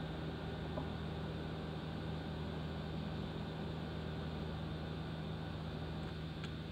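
A steady low mechanical hum with an even hiss over it, unchanging throughout, and a faint tick near the end.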